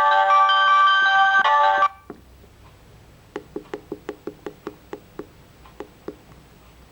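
Samsung SGH-C130 mobile phone playing one of its built-in ringtone melodies, several notes sounding together, which cuts off abruptly about two seconds in. It is followed by a quick run of about a dozen short clicks, around four a second.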